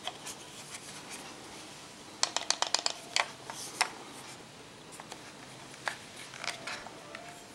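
Sharp clicks and taps of a Xiaomi Wiha precision screwdriver kit being handled. A quick run of about seven clicks comes about two seconds in, as the bit tray is taken out of its aluminium sleeve case, followed by a few scattered single clicks.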